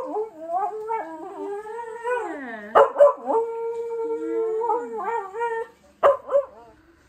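A dog howling and whining in long, wavering calls whose pitch dips down and glides back up, broken by a few sharp knocks.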